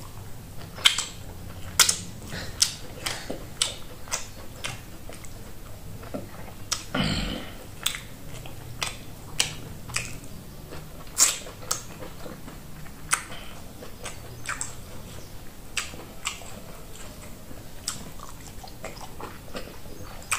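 Close-up wet eating sounds: lip smacks, finger licking and mouthing of oat fufu dipped in peanut butter soup, in short sharp smacks at irregular intervals.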